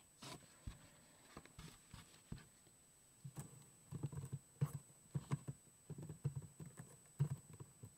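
Typing on a computer keyboard: a few scattered key clicks, then a quicker run of keystrokes from about three and a half seconds in.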